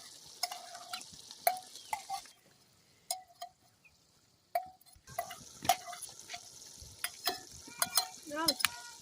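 Food frying and sizzling in a pan, with a utensil scraping and clicking against it as it is stirred. The sizzle drops out for a couple of seconds near the middle and then comes back.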